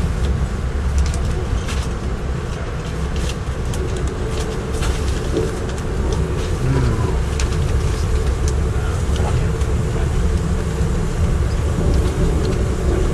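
Inside a moving passenger rail car: the steady low rumble of the train running on the rails, with scattered clicks and rattles.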